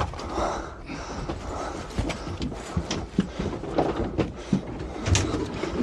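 Handling noise on a small fishing boat: irregular knocks and clicks over a steady low background noise.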